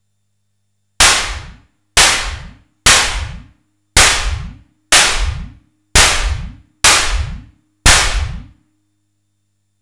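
Simmons SDS7 electronic drum synthesizer sounding a snare from its analog voice, triggered eight times about once a second. Each hit is a sharp noisy crack with a tone that sweeps up in pitch, dying away in under a second, with a short reverb added.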